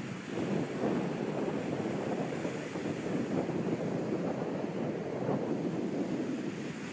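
Ocean waves washing against the shore: a continuous, surging rush of water that swells and eases, with wind on the microphone.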